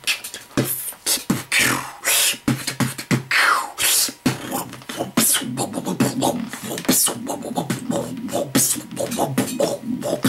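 Dubstep beatboxing by mouth into a handheld microphone: fast clicks and snare-like hits, two falling sweeps in the first few seconds, then from about four seconds in a buzzing wobble bass under the beat.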